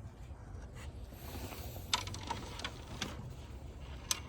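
A few faint, short clicks and taps from a 32 mm socket wrench working at a very tight oil filter housing cap, scattered over the last half.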